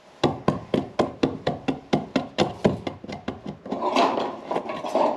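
A quick, even run of about sixteen light hammer taps, some four to five a second. For the last second and a half they give way to a jumble of clatter and rustling, like tools being rummaged through.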